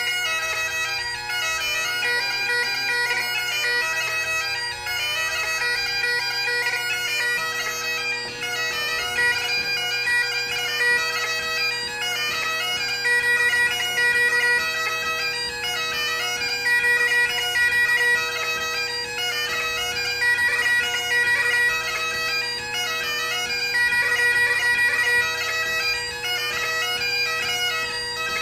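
Great Highland bagpipe played solo: the drones hold a steady bass tone while the chanter plays a melody of quick changing notes, with some longer held high notes.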